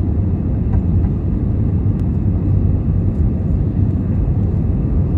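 Steady, loud low rumble of an Airbus A319's jet engines and rushing air, heard from inside the economy cabin as the airliner climbs out at takeoff thrust.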